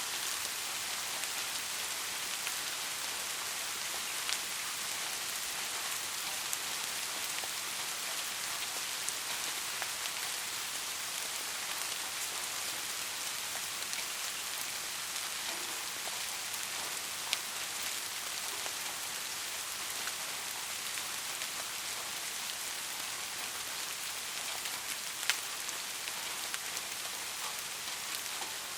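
Steady rain falling, an even hiss with scattered distinct drop ticks, one sharper about three-quarters of the way through.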